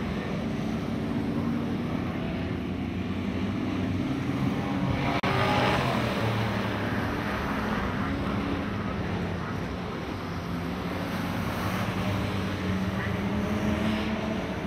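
Dirt-track race car engines running hard as two cars lap together, a wavering engine drone that shifts in pitch, with a louder rush about five seconds in.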